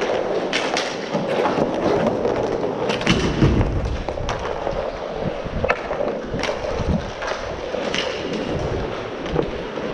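Inline skate wheels rolling steadily over a plastic sport-tile rink floor, with sharp clacks of hockey sticks and puck scattered through it.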